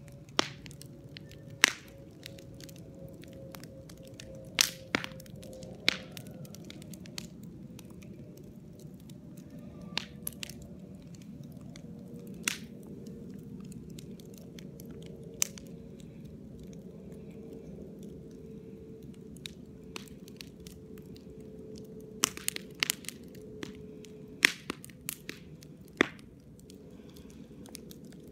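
Fireworks and firecrackers going off: scattered sharp cracks at irregular intervals, some in quick clusters near the end, over a steady low background hum.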